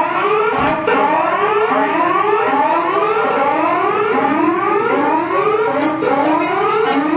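Spacecraft simulator's electronic emergency alarm sounding, a run of repeated rising whoops. It signals an on-board emergency alert, here a too-low humidity warning.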